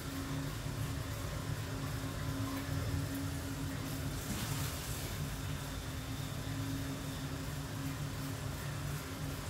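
Steady low drone of a running cardio exercise machine, with a brief hiss about four and a half seconds in.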